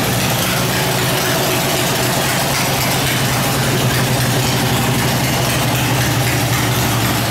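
A single Briggs & Stratton twin-cylinder mower engine running steadily at idle through short open exhaust pipes, one of four engines meant to run together as an eight-cylinder racing mower.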